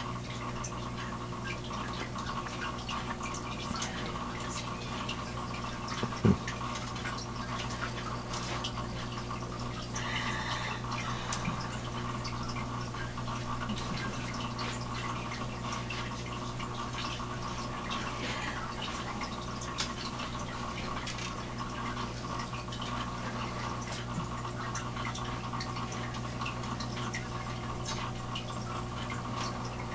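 A tank's water filter running: water trickling and dripping over a steady low hum. A single sharp knock about six seconds in.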